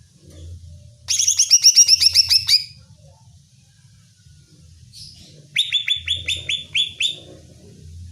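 Greater green leafbird (cucak ijo) calling: two rapid runs of repeated down-slurred whistled notes, each about a second and a half long, the first starting about a second in and the second a little past the middle.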